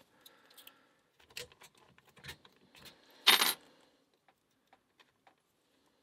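Small metallic clicks and rattles of a key and lock picks being worked at a Master Lock No. 3 laminated-steel padlock, resetting it between picking tries. One loud metallic clatter a little past three seconds in, then a few light ticks as the pick and tension wrench go into the keyway.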